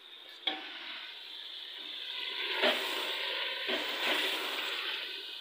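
Food sizzling in a cooking pot as it is stirred, a steady hiss with a few sharp knocks.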